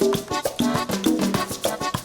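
Upbeat Latin-style dance music with brisk, busy percussion under a moving melodic line.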